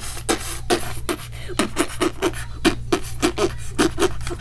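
A child making rapid gunfire noises with the mouth: a fast run of short pops, about four or five a second.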